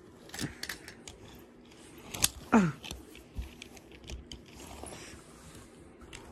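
Small die-cast toy cars being picked up and set down by hand: light, scattered clicks and clatter of metal and plastic. A short whine falling steeply in pitch comes about two and a half seconds in.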